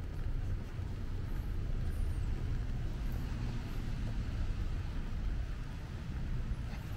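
Steady low rumble of city traffic on wet streets, mixed with wind buffeting the microphone.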